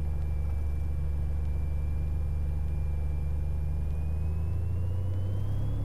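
Cessna 182 Katmai's six-cylinder Continental IO-550 engine and propeller running steadily, heard inside the cabin, rising in pitch from about four seconds in as power comes up for the takeoff roll.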